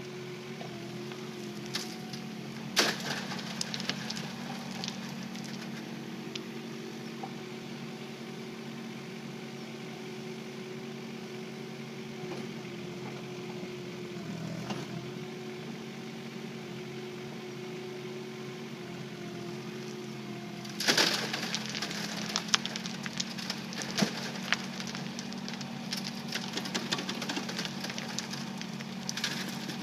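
Kubota K008-3 micro excavator's diesel engine running steadily, with bursts of rattling and clattering about three seconds in and again from about twenty-one seconds on, as stony soil is worked through a screen.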